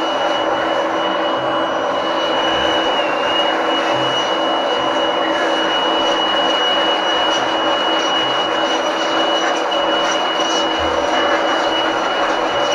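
Makita UB182D 18V cordless blower running steadily at constant speed: a rush of air with a steady high motor whine.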